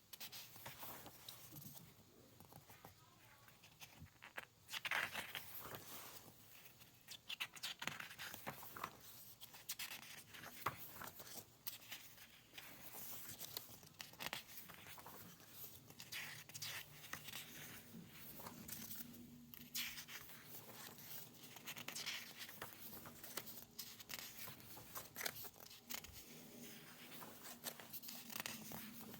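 Quiet crinkling and rustling of paper and plastic packaging being handled, with many small taps and clicks and a few sharper tearing sounds.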